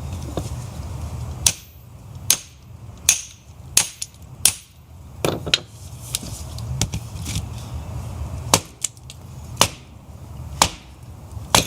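A series of sharp single knocks or chops, about one every three-quarters of a second at first, then a pause, then about one a second, over a steady low rumble.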